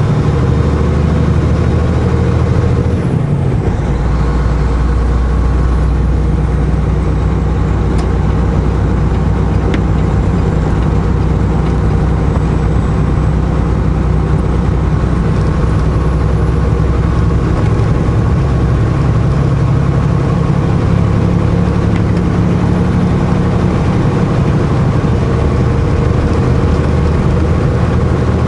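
Semi truck's diesel engine running steadily under way, heard inside the cab together with road noise; the engine note drops about three seconds in, as after a gear change.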